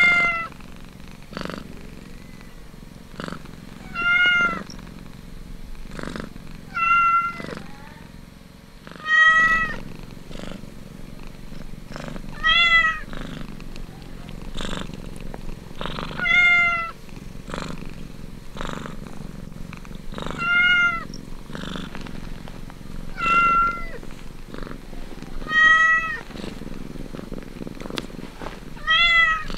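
A cat mewing over and over, about ten short arched calls one every three to four seconds, over steady low purring from the nursing cats.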